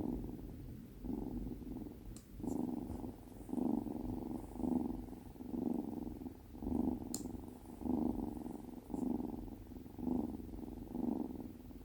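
Kitten purring close up, a steady low rumble that swells and fades about once a second with its breathing. Two faint clicks sound over it.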